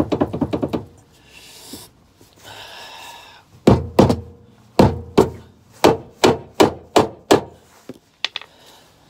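A corroded Westfalia detachable tow bar being knocked and shaken to free it from its seized, rusted socket: a rapid rattle at the start, then about ten heavy thuds a little under half a second apart.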